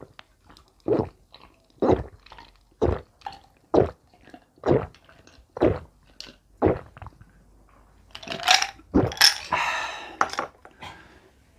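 Iced coffee being gulped down, one loud swallow about every second. About eight seconds in comes a louder, noisier stretch lasting a couple of seconds.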